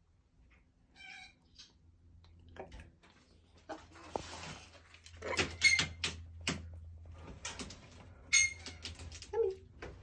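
A macaw feeding from a metal spoon: scattered short clicks and squeaky notes, sparse at first and busier in the second half.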